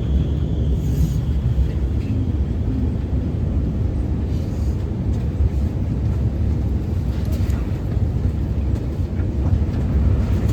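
Inside an Alstom Movia R151 metro car running on the line: a steady low rumble of wheels and running gear, with a faint high tone that fades out about a second in.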